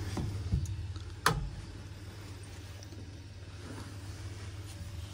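Hands working on an underfloor heating manifold's fittings: a soft knock, then a sharp knock about a second in, over a steady low hum.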